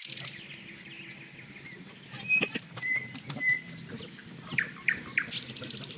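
Small birds chirping: short high chirps and whistles, with a few sharp clicks or knocks in between. A fast pulsing high buzz stops at the start and comes back near the end.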